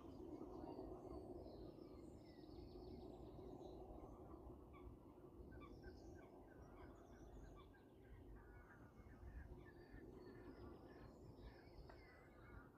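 Faint outdoor ambience: many small, high-pitched bird chirps and peeps scattered throughout, over a steady low hum.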